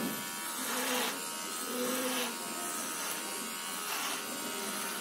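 Philips electric beard trimmer buzzing steadily as it is run through a thick, long-grown beard.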